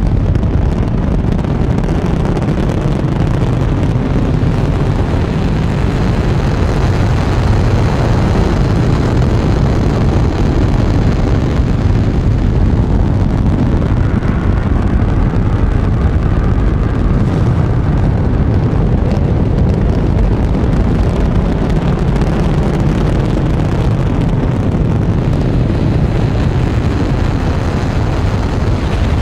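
Saturn V rocket's five F-1 first-stage engines at liftoff: a loud, unbroken roar heaviest in the deep low end.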